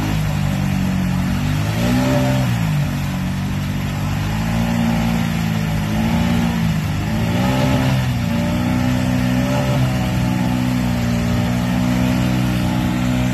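ATV engine revving hard under load in deep mud, its pitch swooping up and down several times as the throttle is worked, then holding higher and steadier near the end. The wheels are spinning and throwing mud while the machine barely inches forward.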